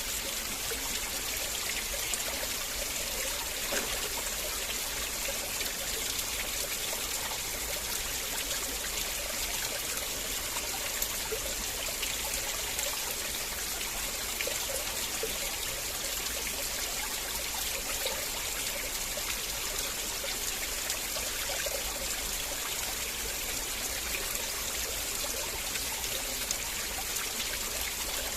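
River water flowing in a steady, even rush, with small trickling sounds.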